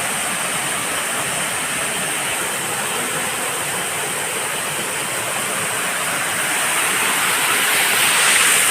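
Waterfall with water rushing fast, a steady, even rush that grows slightly louder near the end.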